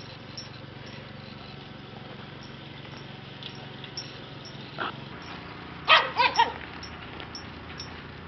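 Shiba Inu puppy yipping: one short yip a little before the middle, then three quick, louder yips about six seconds in, over a steady low hum.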